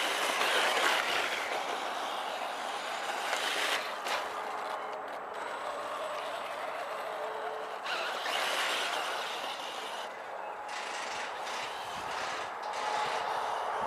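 Kyosho Inferno VE electric 1/8-scale RC buggy driving over wood-chip mulch: a hiss and rustle of tyres and drivetrain that swells and fades three times, with a faint motor whine at times.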